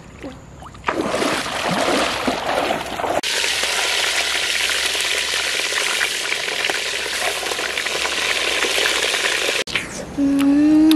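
Squid frying in hot oil in a metal pot: a steady crackling sizzle that starts about a second in and cuts off shortly before the end.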